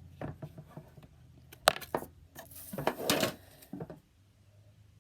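Packaging of a trading-card collection box being handled: a few small clicks and taps, one sharp click under two seconds in, and a short stretch of rustling around the three-second mark.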